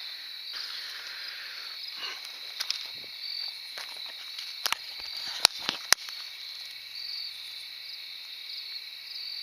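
Steady chorus of crickets trilling at a high pitch, with faint rustling and a few sharp clicks about five to six seconds in.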